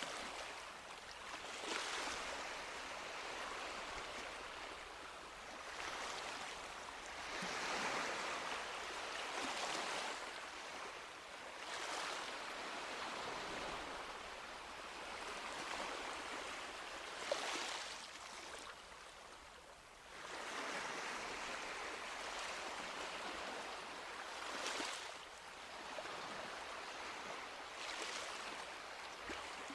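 Small waves washing onto a beach, each surge of surf swelling and fading every few seconds.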